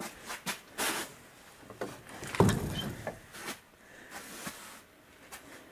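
A door being opened: a run of knocks, scrapes and rattles, with one louder thump about two and a half seconds in.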